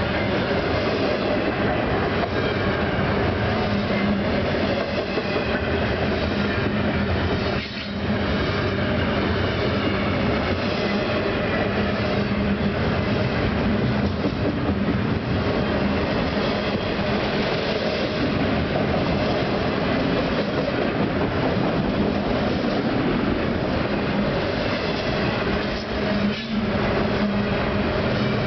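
Double-stack intermodal well cars of a freight train rolling by at close range: a steady rumble and rattle of steel wheels on rail, briefly dipping twice.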